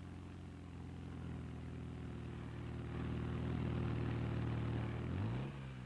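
Chrysler Farmobile light utility truck's engine running steadily as the truck crawls over rough, rocky ground, growing louder, then the engine note shifts and drops away about five seconds in.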